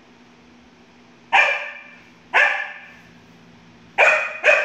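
A dog barking four times in play: two single barks about a second apart, then two quick ones close together near the end, each echoing briefly off the hard tiled room.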